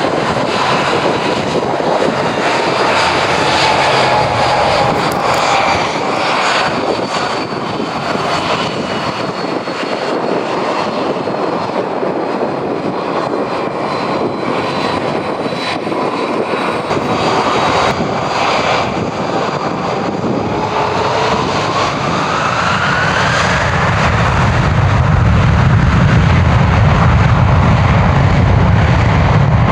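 Airbus A330MRTT tanker's twin jet engines on departure: a steady jet whine whose tones slowly fall in pitch. Later a whine rises, and a deep rumble builds and grows louder near the end.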